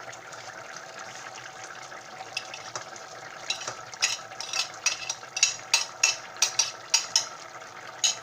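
Beef goulash simmering in a pan with a steady sizzle, while a utensil is stirred through it, clinking and scraping against the pan in a quick run of sharp knocks from about three and a half seconds in.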